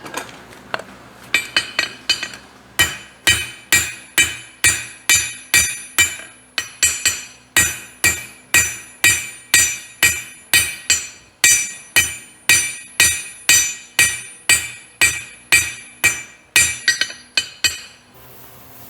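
Farrier's hammer striking a steel horseshoe on the anvil, about two ringing blows a second, drawing up a pair of side (quarter) clips on the shoe in place of a toe clip. The hammering stops near the end.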